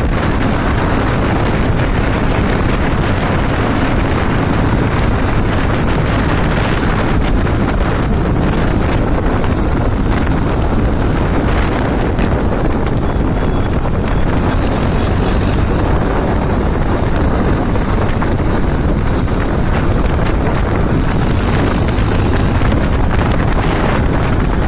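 Massey Ferguson 241 DI tractor's three-cylinder diesel engine running steadily as the tractor drives along a road, with wind buffeting the microphone.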